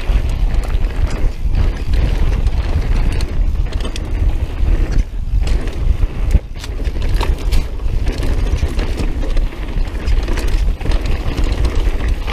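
Mountain bike descending a rough dirt trail at speed: a steady low rumble of wind buffeting the camera microphone, broken by frequent rattles and knocks from the bike and its tyres hitting the ground.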